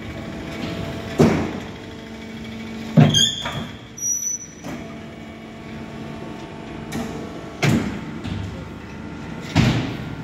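Hydraulic fly ash brick making machine running its automatic pressing cycle. The steady hum of the hydraulic power pack runs throughout, broken by loud clanks and thuds from the press and the pallet mechanism every one to two seconds. Around three seconds in comes a brief hiss and short high squeal.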